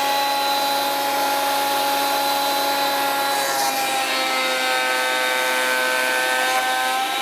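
Parkside PADM 1250 A1 jointer-planer running in thicknessing mode, a steady high motor and cutterhead whine. About halfway in, while an oak board is under the cutterhead, the pitch sags slightly for a few seconds, then recovers.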